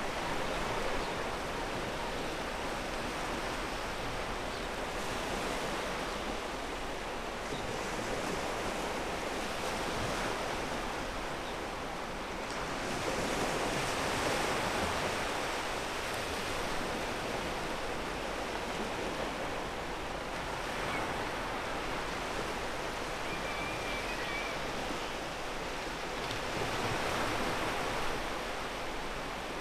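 Ocean waves breaking and washing up a pebble beach as a steady surf, swelling louder twice, about midway and near the end.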